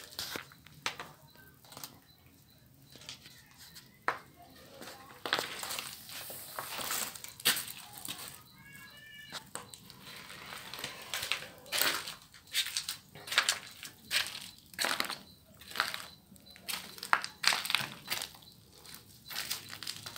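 Footsteps crunching and scuffing over broken plaster and rubble: irregular crunches, some louder than others, with a brief high call about nine seconds in.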